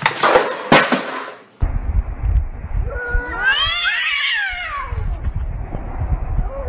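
A sharp clatter in the first second and a half as a toy RC helicopter and a box are knocked off a desk. Then, over a low rumble, a cat yowls in a long caterwaul that rises and falls in pitch, with a steadier yowl near the end, as two cats square off to fight.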